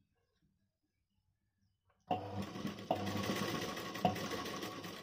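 Sewing machine starting up about two seconds in and running steadily as it stitches a zip into a satin garment, with a sharp click roughly once a second.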